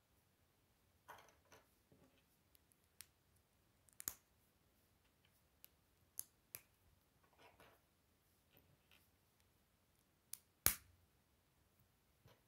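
Small Lego plastic pieces being handled and pressed together by hand: scattered faint clicks and taps with soft rustles of fingers, and one sharper click near the end, the loudest of them.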